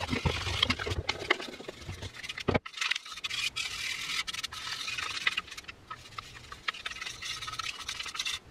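Surface rust being scrubbed by hand off the steel outer sleeve of a cordless reciprocating saw's motor, an uneven run of scratchy strokes with a short break about two and a half seconds in.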